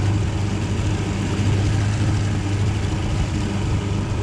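Boat outboard motor running steadily at slow, no-wake cruising speed, a constant low hum heard from aboard the boat.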